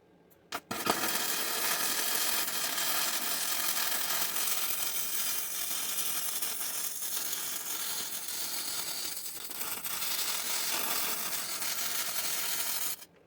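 Arc welding on steel: a steady crackling sizzle that starts about a second in and cuts off abruptly near the end as the arc is broken.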